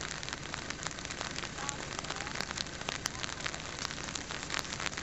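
A steady hiss of outdoor noise dotted with many small crackling clicks, of the kind that rain or sleet makes pattering on a recorder.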